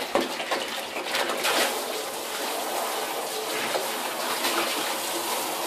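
Garden hose spraying a pinched jet of water against the inside wall of a plastic radial flow filter tank, a steady hiss and splash as it washes settled fish solids off the sides.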